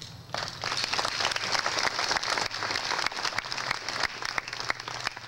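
Audience applauding, starting a moment in and thinning out toward the end.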